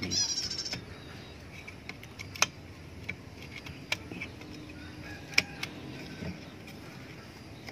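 A spear-gun trigger housing being pushed and worked into a chiselled slot in a wooden stock: a short scraping rattle at the start, then a few sharp clicks and knocks as it is pressed in. The slot is still too tight for it to seat.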